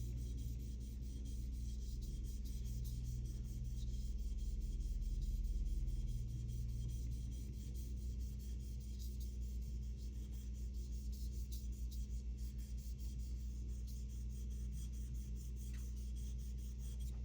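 Steel knife blade, a Santoku with a white #2 steel core, rubbed back and forth on a wet natural whetstone, cutting the metal and building a dark slurry. The strokes come as a continuous wet scraping that turns into quicker rhythmic strokes in the second half, over a steady low hum.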